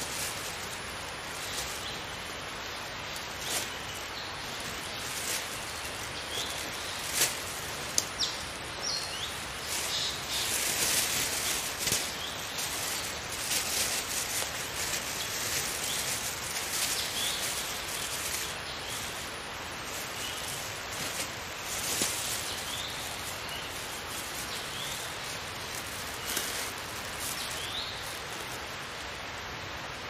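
A clear plastic bag crinkling and rustling as it is handled, with a few sharp clicks among the rustles. Short bird chirps come now and then over a steady outdoor background.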